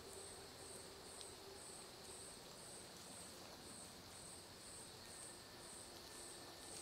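Faint night insects: a high chirp repeating evenly about twice a second over a steady high-pitched trill, like crickets.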